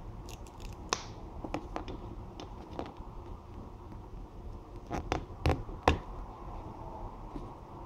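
Small plastic clicks and taps of Pinypon toy figure parts being pulled off and pushed on by hand. The clicks are scattered, with a few louder ones about five to six seconds in.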